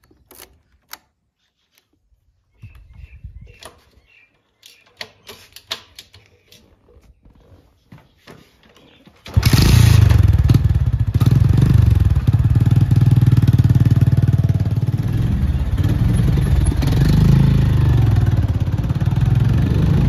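TVS Radeon motorcycle: a few clicks and light knocks as it is readied, then about nine seconds in its single-cylinder engine starts abruptly and runs steadily.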